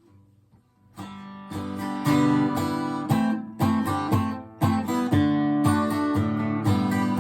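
Acoustic guitar strumming chords in a steady rhythm, coming in about a second in after a few faint noises and growing louder.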